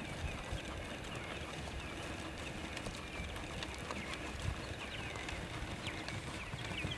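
Horse trotting on a sand arena: soft, dull hoofbeats, scattered and uneven.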